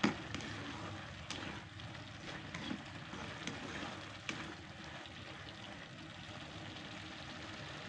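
Beef in black pepper sauce sizzling gently in a pan, a steady low sizzle with a few sharp clicks of a spatula against the pan as it is stirred.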